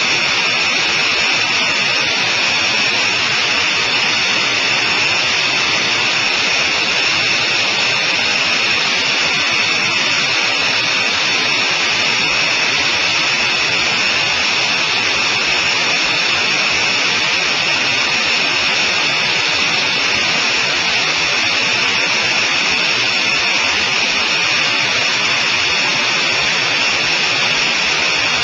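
Cockpit noise of a Sonerai I light aircraft in flight: its converted Volkswagen engine and propeller running steadily with wind rush, an even, unchanging hiss-laden drone heard from inside the cockpit.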